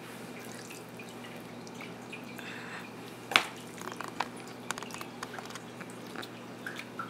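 Soft wet squishing and light clicks of fingers and a spoon packing minced milkfish filling into the head of a deboned milkfish, with one sharper click about three seconds in. A faint steady hum runs underneath.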